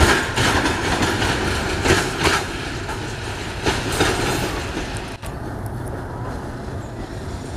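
Container flat wagons of a freight train rolling away over the rails, wheels clacking over rail joints, some clacks in pairs. About five seconds in the sound dulls to a quieter, fading rumble as the train draws off.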